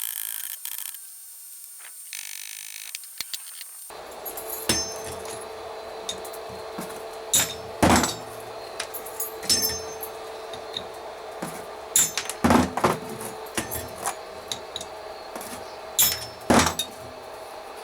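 Hammer blows on hot iron at the anvil, forging nails: sharp strikes in short irregular groups, some with a high metallic ring, over a steady hum. A hissing sound of a different kind fills the first few seconds.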